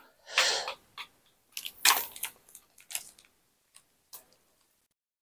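Plastic sachet of cheese seasoning powder crinkling as it is handled and shaken out over a bowl: two louder rustles, one about half a second in and one about two seconds in, then a few faint ticks.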